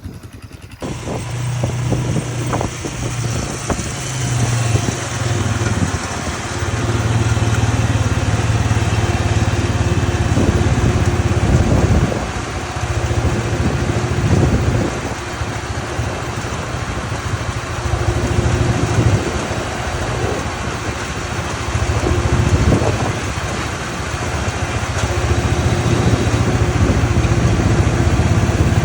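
A vehicle engine running steadily under way, with a rushing noise over it; it comes in abruptly about a second in.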